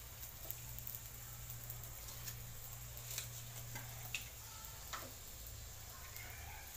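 A little oil heating in an aluminium kadai on a gas stove, giving a few sharp, scattered ticks and pops over a low steady hum.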